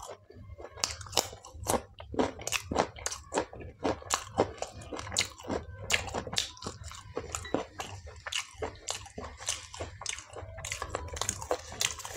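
A person chewing food close to the microphone, with crisp crunching bites coming quickly and irregularly, several a second.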